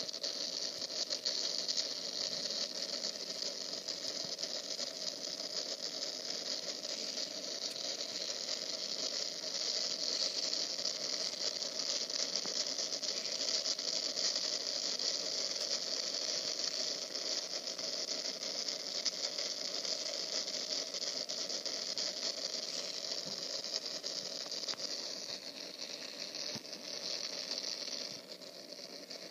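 Steady hiss of heavy rain with a fine crackling patter, easing slightly near the end.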